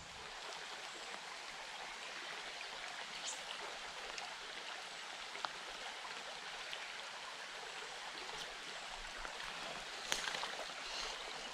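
Shallow creek running over a gravel riffle: a steady rush of flowing water, with a few faint ticks.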